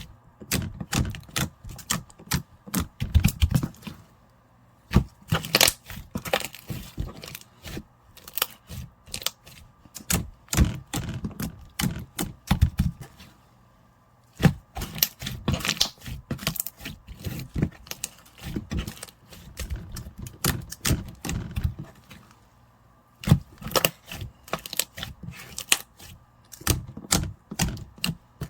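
White slime being squeezed and pressed by hand, giving runs of crackling, popping clicks with short pauses between them.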